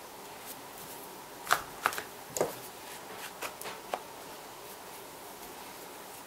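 A handful of sharp clicks and knocks as the motor cover of a Biax electric scraper is slid back over the motor's brush end and pushed onto the body. They come from about a second and a half in to about four seconds in.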